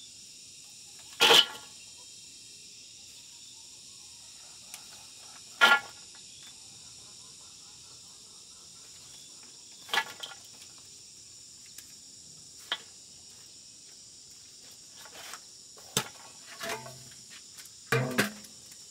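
Handfuls of dry, harvested peanut plants rustling and crunching as they are dropped into an aluminium basin, in short separate bursts several seconds apart. Near the end an empty aluminium basin is picked up and moved. Insects chirr steadily in the background.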